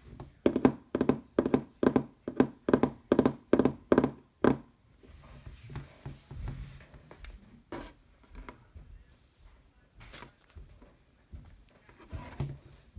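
A hand tapping quickly with dull thuds, about a dozen taps at roughly three a second, stopping about four and a half seconds in. After that there are only a few soft handling sounds.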